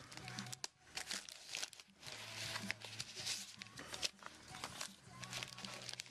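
Packing material crinkling and tearing in irregular rustles and crackles as a shipping box is unpacked.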